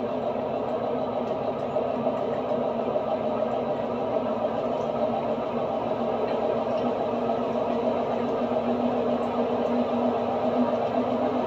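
Washing machine running with a steady, rough mechanical drone from the drum bearing, the sign of a damaged bearing.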